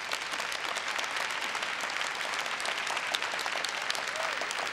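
Large arena crowd applauding: the steady clapping of many hands.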